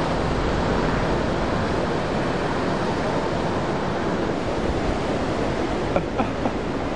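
Steady roar of heavy surf breaking, with wind on the microphone. A couple of short knocks about six seconds in.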